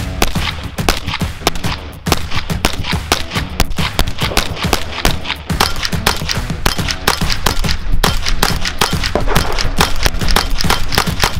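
Ruger 10/22 semi-automatic .22 LR rifle in an SBI C-71 chassis fired rapidly, several shots a second in quick strings, with background music underneath.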